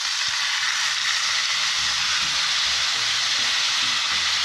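Orange-juice, barbecue and soy sauce sizzling steadily as it is poured into a hot frying pan around a piece of frying pork, boiling off in steam.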